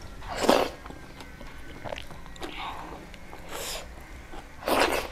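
Close-miked eating by hand: chewing and small wet mouth clicks, with three short, noisy slurps, the loudest about half a second in and two more near the end.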